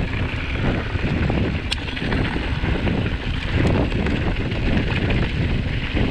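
Wind buffeting the action camera's microphone while a mountain bike rolls along a dirt trail, with two sharp ticks from the bike along the way.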